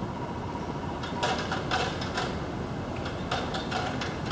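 Construction-site and street noise: a steady rumble with two clusters of short, sharp clatters, one a little over a second in and another about three seconds in.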